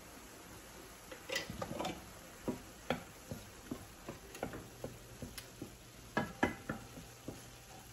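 A spoon stirring browned ground beef in a stainless steel skillet, scraping and tapping against the pan in irregular clicks, a few a second, over a faint sizzle.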